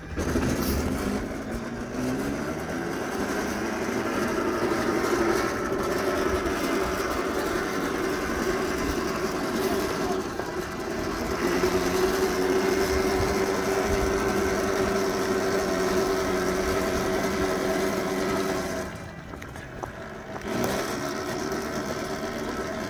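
A 2000-watt, 48-volt electric go-kart motor whines steadily as the kart drives along. The whine drops away about nineteen seconds in, then picks up again briefly near the end.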